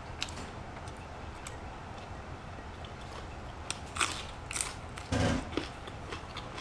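Crisp crunching bites into a raw green vegetable dipped in seafood sauce, two sharp crunches about four seconds in, followed by chewing and a short low hum from the eater.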